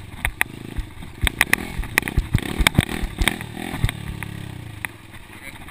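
Small dirt bike engine revving up and down while riding, with many sharp knocks and rattles. About four seconds in, the engine settles to a lower, steadier note.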